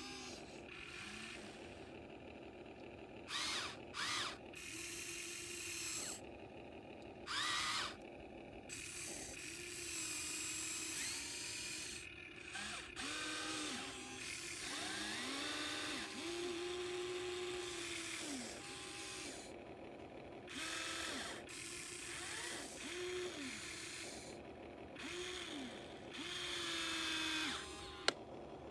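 Small electric motors and gears of a radio-controlled model excavator whirring in short bursts as it works, each whine rising in pitch as the motor spins up and dropping as it stops. A few louder, harsher grinding bursts come in the first several seconds.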